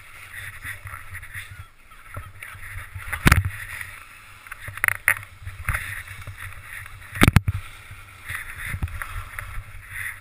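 Skis sliding and scraping over packed, rutted snow, picked up by a helmet-mounted GoPro, with several sharp knocks, the loudest about three and seven seconds in.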